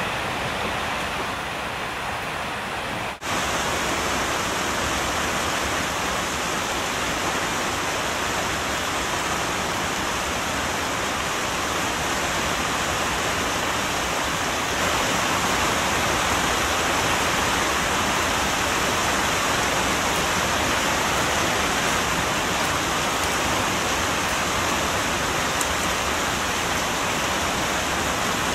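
Steady rushing hiss with no distinct events in it; it cuts out for a moment about three seconds in.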